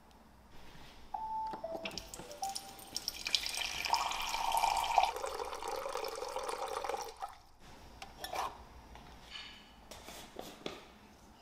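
Water running from a dispenser tap into a glass Pyrex measuring cup for about four seconds, cutting off suddenly. A few short tones come before it, and scattered light clicks and taps follow.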